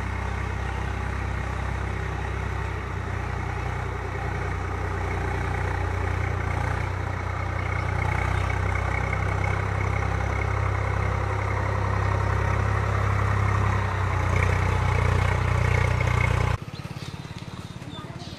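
Tractor's diesel engine running steadily under load while tilling a flooded paddy field, growing gradually louder. The sound cuts off abruptly near the end, leaving quieter outdoor sound.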